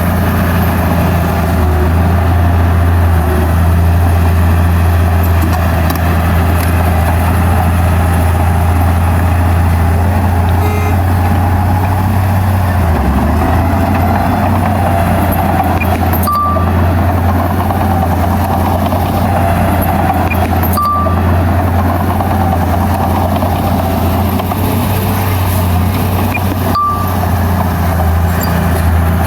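Heavy diesel earthmoving machinery running steadily, a deep, constant engine drone. Three short high beeps are heard in the second half.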